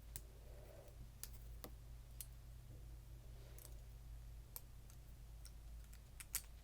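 Plastic Lego bricks clicking as they are handled and pressed together: a scattering of faint, sharp clicks about a second apart, with a quick pair of clicks near the end.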